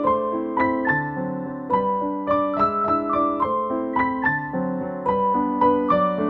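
Background piano music: a gentle melody of struck notes over chords, the notes following one another at an even, unhurried pace.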